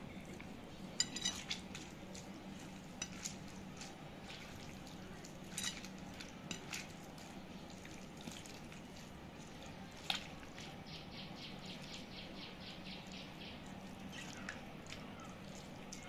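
A hand squeezing and mashing soft cooked pumpkin on a ceramic plate: faint wet squishing with scattered sharp clicks against the plate, over a steady low hum. Past the middle comes a quick run of even ticks, about eight a second, lasting a couple of seconds.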